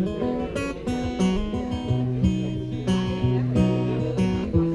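Gibson J-45 acoustic guitar playing a song's instrumental intro: chords picked and strummed in a steady rhythm over moving bass notes, with no singing.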